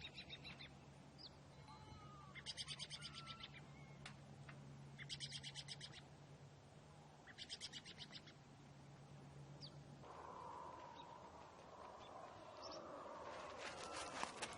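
A bird singing short, rapid trills of high notes, about one every two and a half seconds, over a steady low hum. The hum stops about ten seconds in and a wider, denser noise builds near the end.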